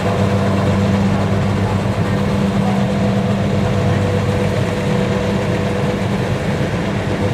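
Kubota DC-70 combine harvester's diesel engine running steadily, a constant low drone with a faint steady whine above it.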